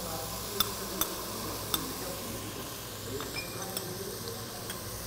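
A few sharp clinks of a spoon against a small bowl and a stainless steel pot as chopped olives are added, over a faint steady sizzle from the pan.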